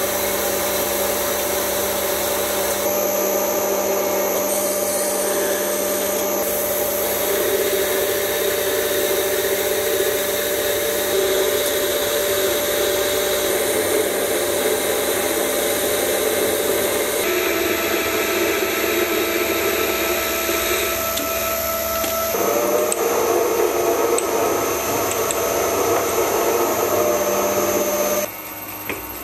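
Metal lathe running, its spindle and motor giving a steady hum as a tool turns a metal workpiece. The hum's pitch and level change abruptly several times, and near the end a twist drill bores into the end of the part.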